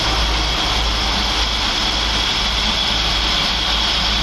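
Powercity marine diesel engine running steadily, a low drone with a thin high-pitched whine on top.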